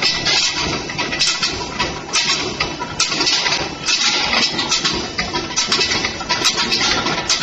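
Skew rolling mill rolling red-hot steel bar into balls: a loud, continuous mechanical din with repeated surges of hiss and scattered sharp knocks.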